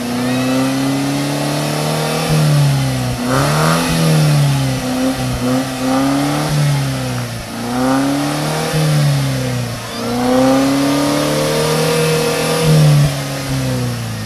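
Mercedes-Benz SLK 200's four-cylinder engine revved repeatedly with the car standing still, heard through AMG quad-outlet exhaust pipes. The note rises and falls over about seven revs, with the loudest one near the end.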